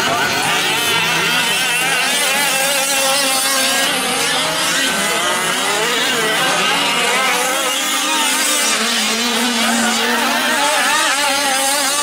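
Several fifth-scale gas RC trucks' small two-stroke engines racing, their pitches overlapping and rising and falling as the drivers work the throttle.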